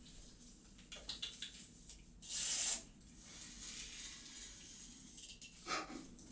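Kitten hissing: one short, sharp hiss about two seconds in, with faint clicks and soft rustling around it.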